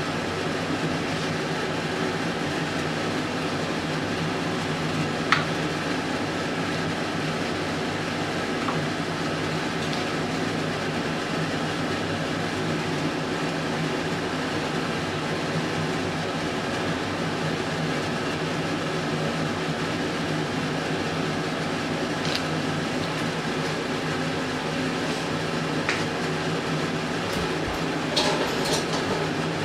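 A steady machine hum, with a few light knocks of a kitchen knife on a plastic cutting board as a lemon is sliced into wheels, and a quick cluster of light clicks near the end.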